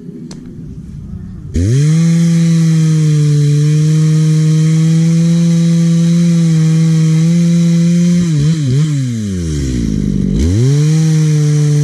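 Two-stroke chainsaw engine revved to full throttle about a second and a half in, holding a steady high pitch. Near the end the revs waver and drop away, then climb back to full throttle.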